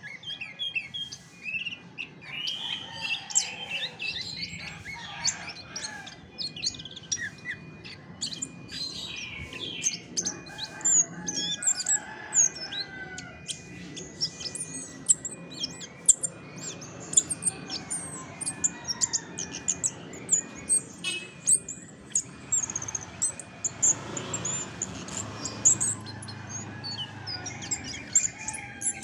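Chestnut-backed thrush singing a long, varied song of rapid short chirps and quick whistled notes, almost without pause.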